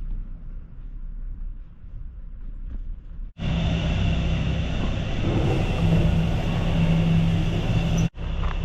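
Steady mechanical rumble with a low hum, heard in three cut-together pieces; it is much louder from about three seconds in and cuts off sharply near the end.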